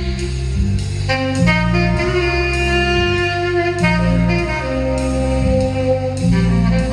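Recorded music: a slow instrumental passage of held saxophone notes over a steady low bass line, with no singing.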